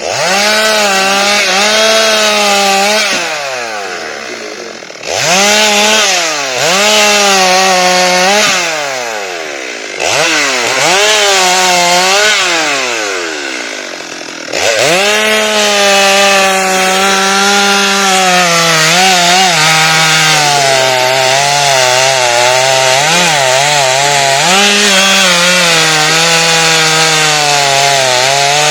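Chainsaw cutting into a rubber tree. The engine revs up and falls back three times, then runs on at high revs from about halfway, its pitch sagging and wavering as the chain works through the wood.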